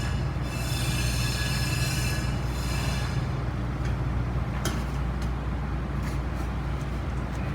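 Stainless steel exhaust hanger rods squealing as they are forced into rubber exhaust hangers, a high, rubbing squeal for the first three seconds or so. A couple of sharp knocks follow, over a steady low hum.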